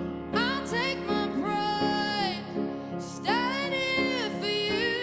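A woman singing a slow ballad live, holding long notes with vibrato and breaking between phrases, over sustained instrumental accompaniment.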